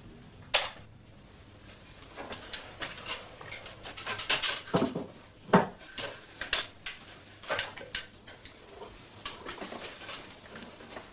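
Tins and crockery being handled: a string of separate clinks and knocks, one sharp one just under a second in and a busier cluster around the middle.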